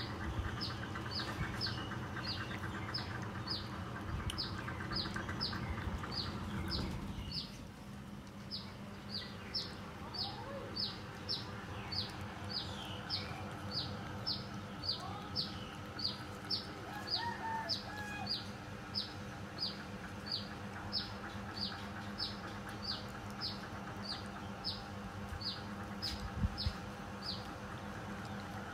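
A bird's short, high chirps, each sliding slightly down, repeating steadily about twice a second. Under them, a steady low hum cuts off about seven seconds in.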